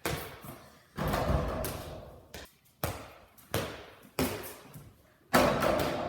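A series of about eight heavy thuds or slams, coming irregularly about once every half second to a second, each ringing out briefly; the loudest comes near the end.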